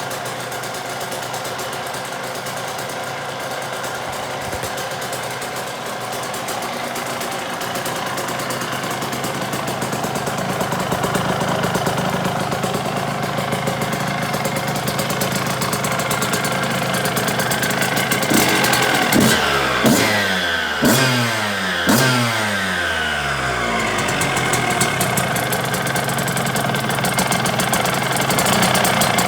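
1998 Suzuki RM125's freshly rebuilt single-cylinder two-stroke engine running at idle. About two-thirds of the way through the throttle is blipped three or four times in quick succession, each rev shooting up and falling back before it settles to idle again.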